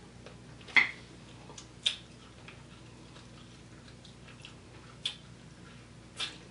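Wet mouth smacks and clicks of someone eating fufu and efo riro by hand, chewing and sucking sauce off her fingers. A few short, sharp smacks, the loudest about a second in and again soon after, with weaker ones near the end.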